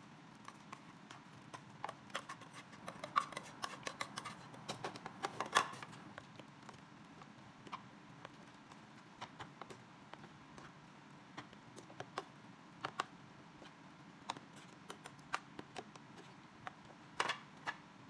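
Scattered light clicks and taps from handling a plastic microwave cooking box and stirring tomato and egg in it. They are thickest in the first few seconds and come again in a short cluster near the end, over a faint steady room hum.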